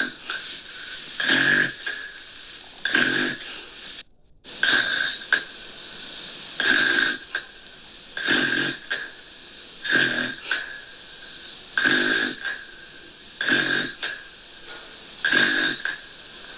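Gentle snoring, one short snore roughly every second and a half to two seconds, repeating evenly, with a brief break in the sound about four seconds in.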